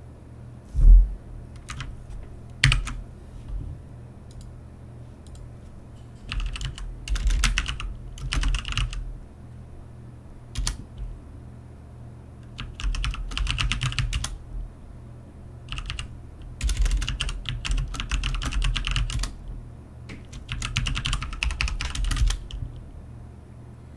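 Computer keyboard being typed on in several short bursts of keystrokes, with a single loud knock about a second in.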